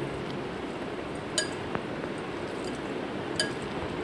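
Hand mixing small fish in a glass bowl, with sharp clinks against the glass about a second and a half in and again near the end.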